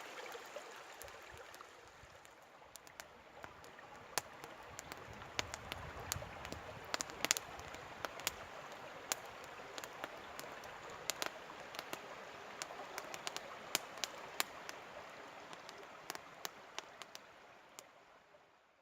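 Running water of a stream, a steady rushing with many sharp ticks and drips scattered through it, fading out near the end.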